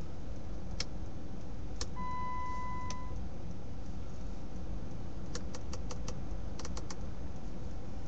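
Switches clicking inside a Jeep Grand Cherokee WK's cabin. Two single clicks come first, then one steady electronic beep lasting about a second. A quick run of about ten clicks follows, all over a low steady rumble.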